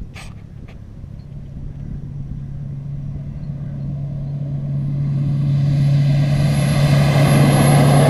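Air Tractor AT-502XP crop-duster's turboprop engine and propeller approaching low and fast, a steady drone that grows louder throughout as the plane closes in. A high turbine whine joins in over the last few seconds.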